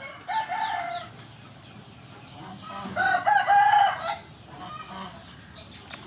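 Rooster crowing twice: a shorter crow just after the start, then a longer, louder crow about three seconds in.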